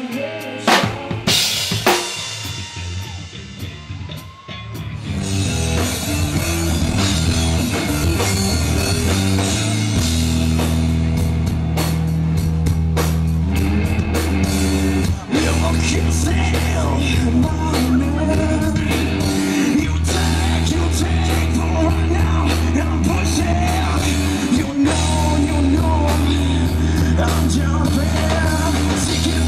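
Live rock band: a few sharp drum and cymbal hits at the start that ring away, then the full band comes in, with drums and electric bass playing heavy, steady low notes and a singer.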